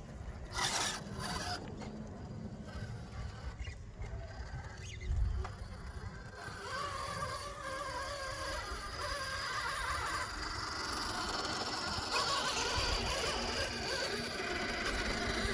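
Electric RC rock crawlers' brushless motors and geared drivetrains whining as the trucks creep over rock, growing louder from about six seconds in. A couple of sharp clicks near the start.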